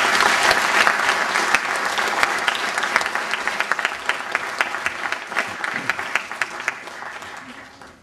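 Audience applauding, many hands clapping at once; the applause is loudest at the start and gradually dies away near the end.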